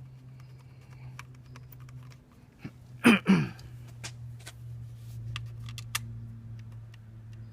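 Small metal screws and hand tools clicking and rattling as they are handled, over a steady low hum. About three seconds in there are two loud, short squeaks that fall in pitch.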